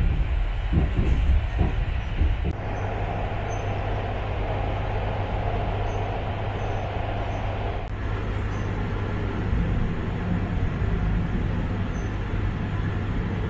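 Steady low drone of a running vehicle, with a few knocks in the first couple of seconds.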